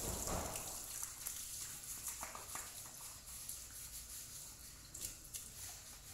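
Water from a garden hose running and splashing onto wet ground, with a few light knocks.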